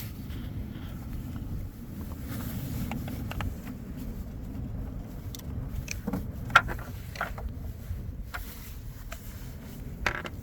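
Scattered light clicks and knocks of plastic and metal parts being handled as a battery hold-down piece is fitted into a truck's battery tray, with one sharper click about six and a half seconds in, over a steady low background rumble.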